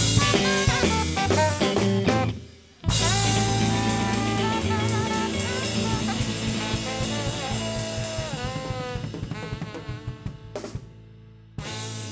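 Live band of electric guitar, bass guitar, drum kit and saxophone playing a song's closing bars. The band stops dead about two seconds in, then comes back on a loud hit into a held chord. Saxophone and guitar lines fade over it while the drums roll faster, and the band ends on two short hits near the end.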